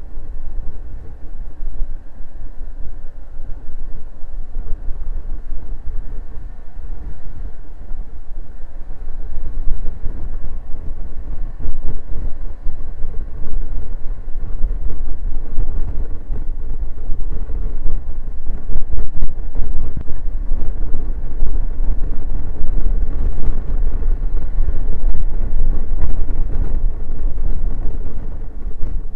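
Honda Forza 125 scooter's single-cylinder engine running at road speed under a heavy low rumble of wind and road noise, which gets louder about ten seconds in.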